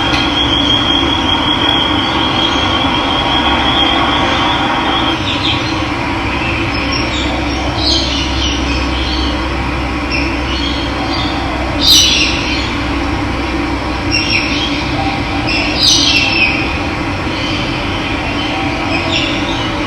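Running water flowing steadily, with birds calling over it: a high wavering trill for the first five seconds, then several short falling calls, the loudest about twelve and sixteen seconds in.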